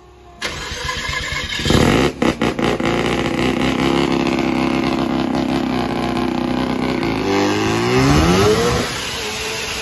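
Boosted van engine revving through a test burnout with the rear tyres spinning. A few sharp pops come early on, then the engine holds a steady high note. Near the end the pitch rises and then falls away abruptly, which the driver put down to hitting boost cut while running lean.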